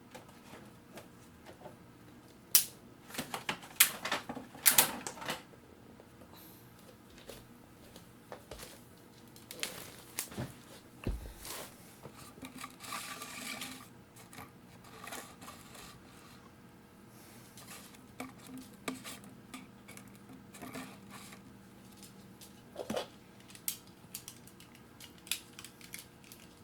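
Irregular light tapping and clicking on plastic, as on bottles and bottle caps, with a burst of louder, quicker taps a few seconds in.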